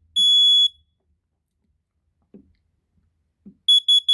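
Kidde battery-operated smoke and carbon monoxide alarm sounding its piezo horn: the last long beep of the three-beep fire pattern, then, after a pause of about three seconds, a quick run of short beeps near the end, the start of its carbon monoxide alarm pattern.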